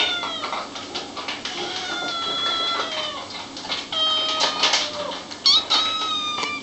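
Kittens meowing: a run of high-pitched, drawn-out meows, about four in a row.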